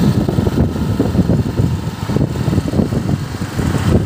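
Wind rumbling on the microphone of a phone carried on a moving motorbike, over engine and road traffic noise.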